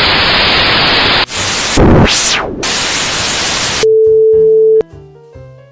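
A loud burst of static-like white noise, with a swept whoosh through it about two seconds in, cuts off suddenly. A steady beep tone follows for about a second, then quiet background music.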